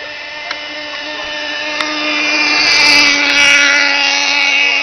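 Small two-stroke gasoline engine of an RC gas boat running steadily, growing louder about two seconds in and easing off near the end.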